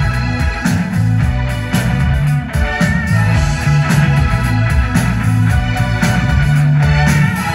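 Live rock band playing: electric guitar over a steady electric bass line and drums.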